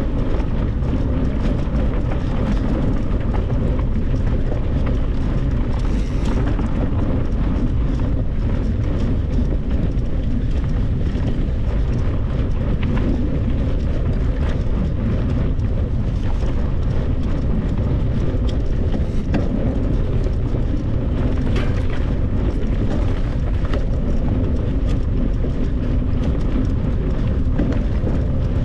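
Steady low rumble with wind buffeting on the microphone, unbroken throughout.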